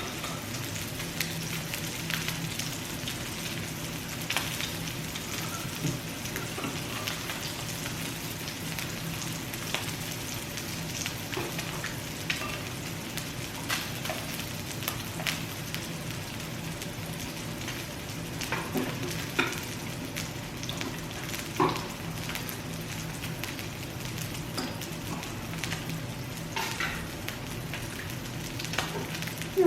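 Pork belly (samgyeopsal) sizzling on a tabletop grill: a steady frying hiss with scattered sharp pops and clicks, over a steady low hum.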